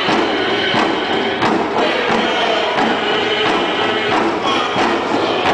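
Traditional drum song: drums beat a steady, even pulse of about three beats a second under a group of voices singing, with the hubbub of a large crowd around it.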